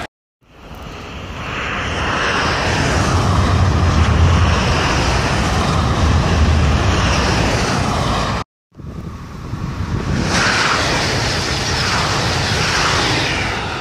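High-speed TGV trains passing at speed: first two coupled TGV Réseau sets, a rush of wheels and air over a low rumble that builds for about two seconds and holds. About eight and a half seconds in, the sound cuts off and a TGV Réseau Duplex double-deck train passes with the same building rush.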